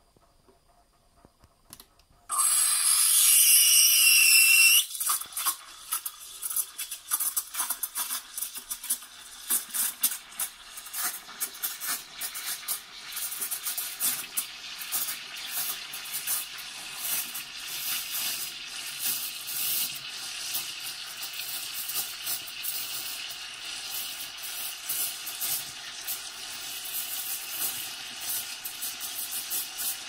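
Breville ESP4 espresso machine's steam wand frothing milk in a stainless steel jug. The steam comes on about two seconds in with a loud hiss, then settles into a quieter spluttering hiss full of small pops as the milk is stretched into foam.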